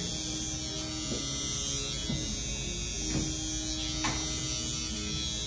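Electric barber's hair clippers running with a steady high-pitched buzz while cutting hair, with a few faint short ticks about once a second.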